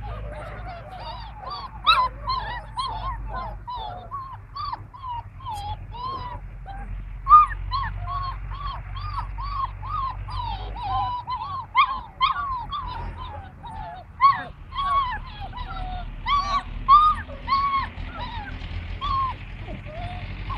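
Great Danes whining and yipping: runs of many short, arching high-pitched calls in quick succession, with a few louder yelps standing out.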